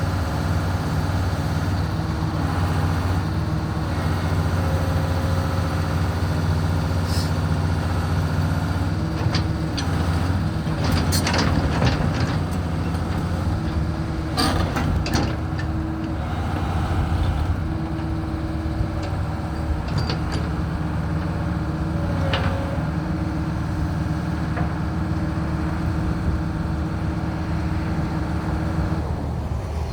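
108 hp diesel engine of a 1997 Daewoo Solar 130LC-V excavator running steadily, its tone shifting a few times. A run of sharp metallic clanks and squeaks comes around the middle, with one more a little later.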